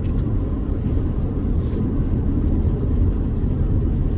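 Steady low rumble of a car driving, engine and road noise heard from inside.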